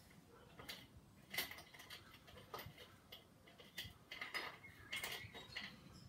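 Light, irregular clicks and taps of plastic and metal parts knocking together as a wheel is worked onto an Arrma Kraton 6S RC truck's hub by hand, about six in all.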